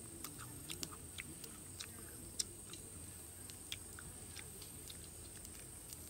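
Close-up chewing of grilled pork meat off the bone: irregular wet mouth clicks and smacks, the loudest about two and a half seconds in.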